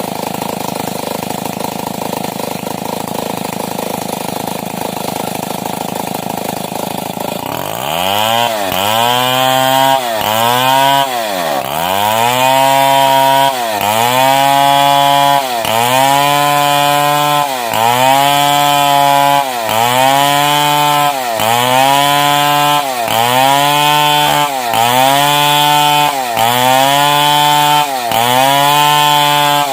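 Stihl 070 two-stroke chainsaw ripping a timber beam lengthwise. For the first several seconds it gives a dense steady rasp; from about eight seconds in the engine note stands out and sags and climbs back about every one and a half to two seconds as the chain bites into the wood and frees up again.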